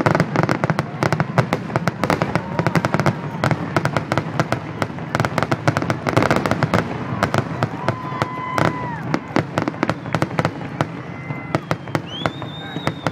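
Aerial fireworks going off in a rapid, continuous barrage: sharp shell bursts and crackling reports, several every second and overlapping without a break.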